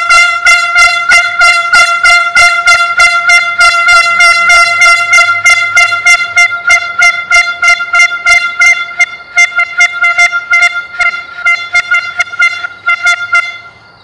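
Air horn blown in a long run of rapid short blasts, several a second, all on one steady pitch; the run stops shortly before the end.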